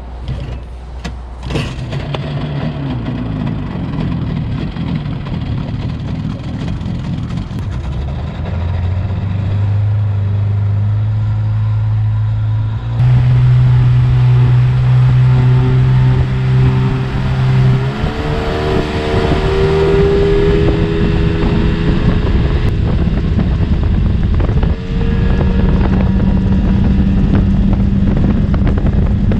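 A 30 hp tiller outboard motor running with the boat under way, its pitch and loudness stepping up several times as the throttle is opened, over a rush of water and wind. A sharp click comes about a second and a half in.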